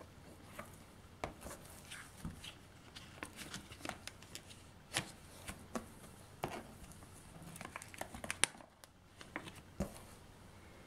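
Matte plastic sleeves of a banknote album crinkling and clicking under gloved fingers, in scattered irregular clicks, with one sharper click toward the end.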